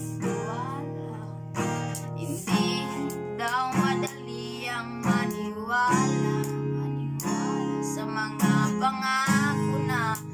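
Acoustic guitar strummed, a fresh chord struck about once a second, with a boy's voice singing along over it.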